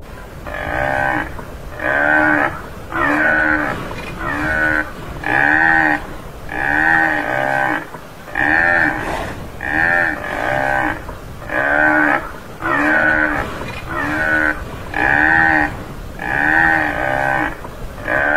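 Tamaraw (Mindoro dwarf buffalo) calling over and over: short pitched calls, about one every 1.2 seconds, each rising and then falling in pitch.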